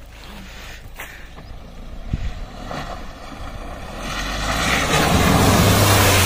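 Mahindra Thar driving through a shallow river crossing: its engine drones low and grows louder as it approaches. From about four seconds in, the tyres throw up a loud, rising rush of splashing water.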